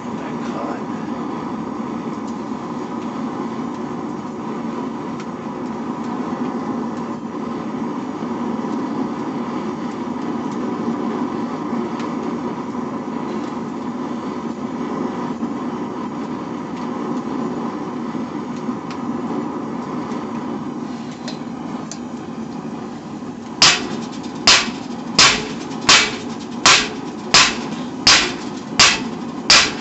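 Forge running with a steady noise; about 23 seconds in, hand-hammer blows on steel over an anvil begin, sharp and regular at roughly one and a half strikes a second.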